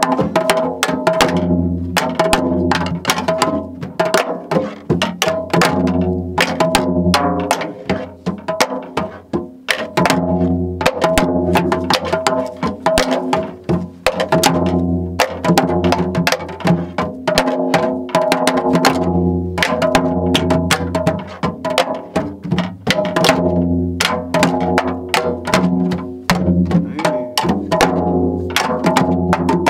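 Janggu, the Korean hourglass drum, played in a steady jungjungmori rhythm: dense sharp stick strokes over deep booms that recur every second or two.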